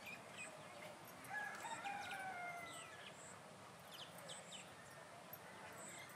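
A rooster crowing once, a single long call starting about a second in, faint and slightly falling in pitch, with scattered short high bird chirps around it.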